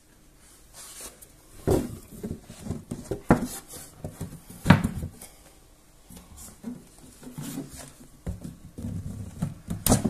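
A flat cardboard display box being handled on a hard floor: several knocks and scrapes, the loudest about five seconds in, with hands sliding over the box lid between them.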